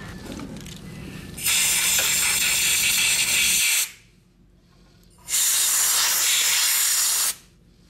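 Compressed-air blow gun blowing metal chips and tapping fluid out of a freshly tapped bolt hole: two hissing blasts of about two seconds each, with a short pause between.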